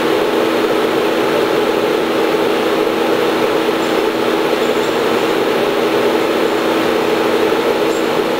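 Industrial machinery running in a plant room: a loud, steady drone with a constant low hum. A few faint metallic clinks from a wrench on flange bolts sound around the middle and near the end.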